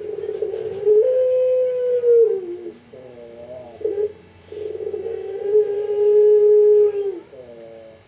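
Puter pelung, a domesticated Barbary dove bred for its long coo, cooing twice. Each phrase starts with a short wavering coo and ends in a long drawn-out coo. The first long note lasts under two seconds; the second, near the middle, lasts over two and a half seconds.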